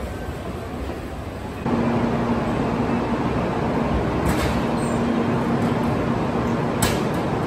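Railway station background noise: a quieter concourse din, then a louder Shinkansen platform's steady rumble with a low hum, from about two seconds in. Two short sharp clicks sound in the second half.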